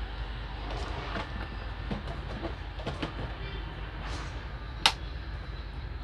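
Steady airflow from an SMD hot-air rework station, set to air 3 and heater 300–350, with small clicks of tools on the circuit board and one sharp click a little under five seconds in.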